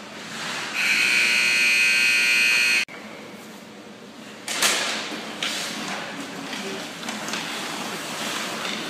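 Ice hockey arena horn sounding once for about two seconds, with a hard start and an abrupt cut-off. A couple of seconds later comes a noisy rink din with a few sharp knocks.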